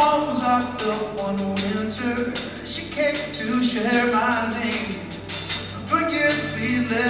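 Live band playing: piano, drum kit, guitars and keyboards, with a singing voice over the top and steady drum hits.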